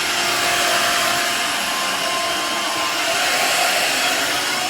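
Shark cordless stick vacuum running steadily: an even motor whine over airflow hiss.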